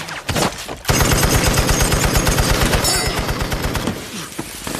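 Machine gun firing: a few shots, a brief pause, then a long rapid burst starting about a second in that dies away near the end.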